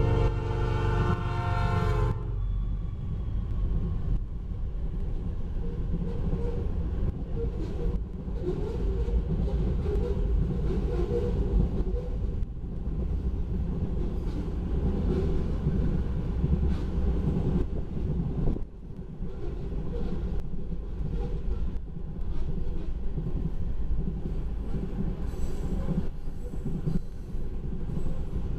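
A diesel freight locomotive's horn sounds a steady chord that cuts off about two seconds in. Then comes the continuous rumble and clatter of a long BNSF manifest freight train rolling past, with repeated wheel clicks.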